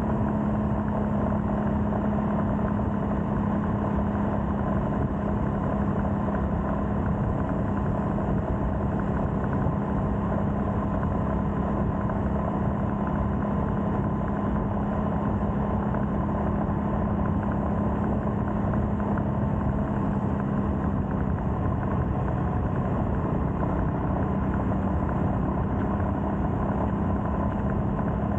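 Royal Enfield Scram 411's single-cylinder engine running at a steady cruise, holding an even, unchanging engine note.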